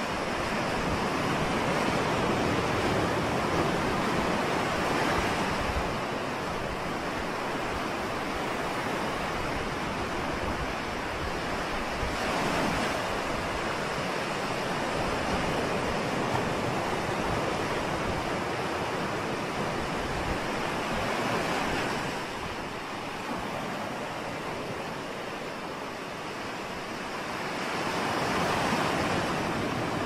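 Ocean surf breaking on a beach: a steady rush of water that swells and ebbs as waves break and wash up the sand. There is a quieter lull shortly before the end, then another wave swells in.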